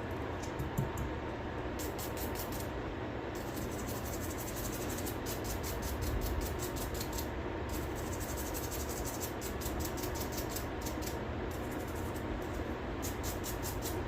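A small brush scrubbing a circuit board around a freshly soldered charging connector, cleaning off soldering flux. It comes as bursts of rapid fine scratching strokes, a second or two at a time with short pauses, over a steady background hiss.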